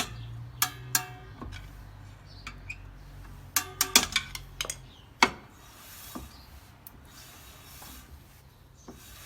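A series of sharp clicks and knocks, some ringing briefly like metal, clustered about three and a half to five seconds in, over a low steady hum.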